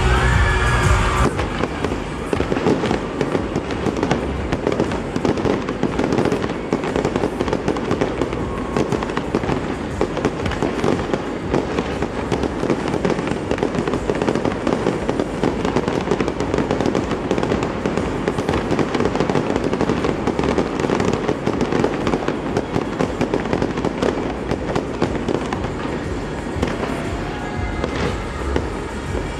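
A close-range fireworks display going off nonstop: many comets and crackling shells firing at once, giving a dense, unbroken stream of pops, bangs and crackle.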